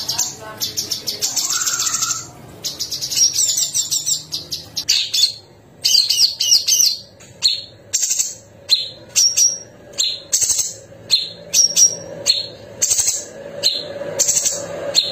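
Orange-bellied leafbird (cucak cungkok) singing: fast, shrill chattering and rapid rolling trills, then from about halfway a run of short, sharp repeated phrases about once a second, each ending in a brief high whistled note.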